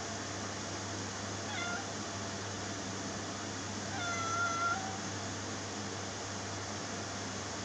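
A kitten meowing twice: a short meow about a second and a half in, then a longer one about four seconds in, over a steady background hiss and low hum.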